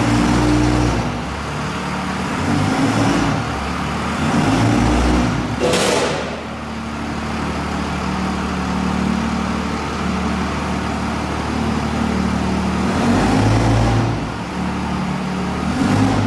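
Dodge Ram 2500's Cummins inline-six diesel running at low revs as the truck creeps onto an alignment rack, its pitch shifting slightly with throttle. A brief rush of noise comes about six seconds in.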